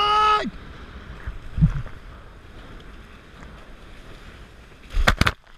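Dart 18 catamaran hull rushing through choppy water under sail, with steady spray and wind noise on the microphone and a low thump about a second and a half in. A quick cluster of sharp knocks comes near the end.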